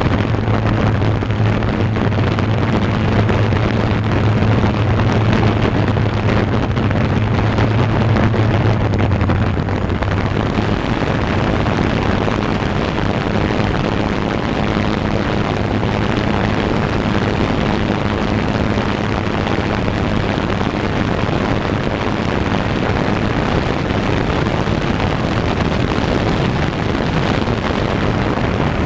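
Multirotor drone hovering, heard from on board: a steady propeller hum under wind rushing over the microphone. The low part of the hum fades about ten seconds in.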